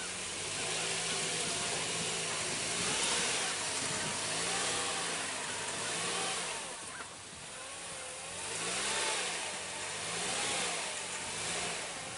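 Vehicle engine revving up and down over and over, about every one to two seconds, against a steady hiss, as the wheels spin off-road.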